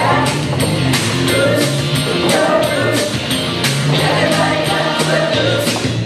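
Background music with a steady beat, a tambourine or similar shaken percussion, and singing.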